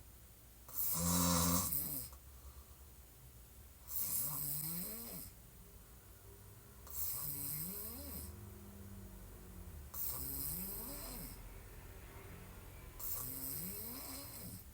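A woman snoring hard while asleep on her back with her mouth open: five loud snores about three seconds apart, each a little over a second long, the first the loudest.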